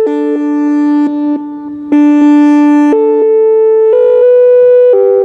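Chime tones broadcast through an ATI HPSS-32R electronic siren's speaker array during its test: a tune of loud, steady overlapping notes that step to a new pitch about once a second.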